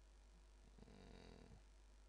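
Near silence: room tone with a faint steady low hum, and a brief faint sound about a second in.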